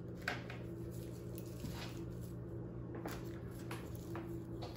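Artificial flower and fern stems rustling and crackling in a few short bursts as they are handled and sorted, over a steady low hum.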